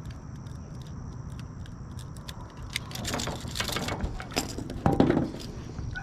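Clicks and rattles of a treble-hooked lure and a hooked bass being handled while the hooks are worked out, starting about three seconds in and loudest about five seconds in, over a low steady rumble.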